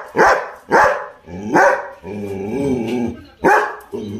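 Labrador retriever barking: four short, sharp barks, with one drawn-out wavering moan about two seconds in.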